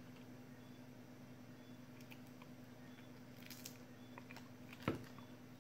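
Faint handling of 18650 lithium-ion cells as tape and paper are peeled off them: a few light clicks and crinkles, with a sharper click near the end, over a low steady hum.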